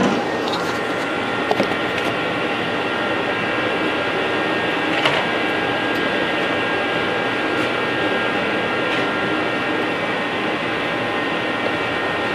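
A motor-driven machine running steadily: a noisy hum with several thin, high whining tones held level throughout. A few light clicks come over it.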